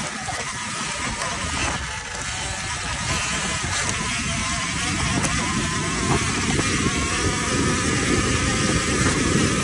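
Dirt bike engine running as the bike rides along a dirt trail, picking up revs about halfway through. Heard from a phone mounted on the handlebars.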